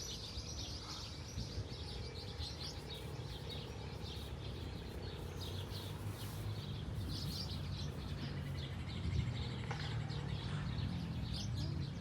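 Birds chirping: many short high calls repeating throughout, over a steady low rumble.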